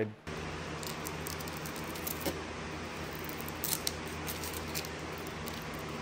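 Steady low hum with a few light clicks and small rattles, about two seconds and four seconds in.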